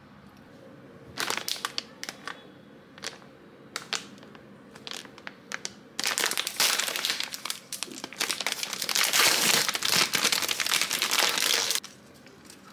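Plastic snack wrapper crinkling in the hands as it is opened. First come scattered crackles, then from about halfway a long stretch of continuous loud crinkling that stops suddenly near the end.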